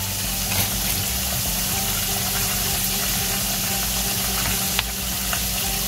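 Grapeseed oil and butter heating in a wok, giving a steady sizzling hiss, with a low even hum underneath and a few faint clicks.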